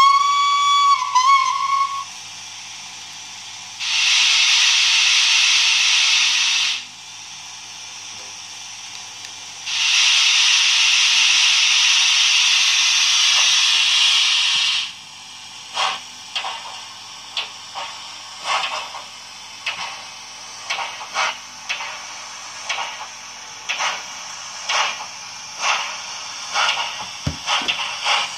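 Sound-equipped model steam locomotive's sound unit: a short steam whistle blast, then two long hisses of steam from the cylinder drain cocks, then exhaust chuffs starting slowly, about one or two a second, as the engine gets under way.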